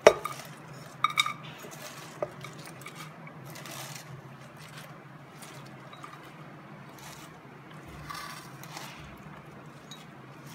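A sharp metallic clank from the pressure cooker pot, then two lighter clinks about a second later, followed by soft rustling as handfuls of chopped spinach are dropped into the cooker.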